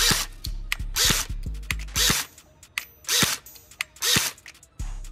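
Umarex HK416 low-power electric airsoft gun firing five short bursts about a second apart, the motor and gearbox cycling with each trigger pull.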